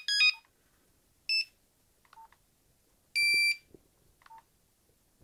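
Nokia 3310 beeping through its small speaker while its ringtones are scrolled: the last notes of a monophonic ringtone, a short beep about a second in, a longer half-second tone about three seconds in, and faint clicks between them. Another ringtone preview starts at the very end.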